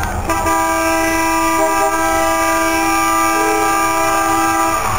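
A horn with several tones sounding together, held in one long steady blast of about four and a half seconds that cuts off just before the end.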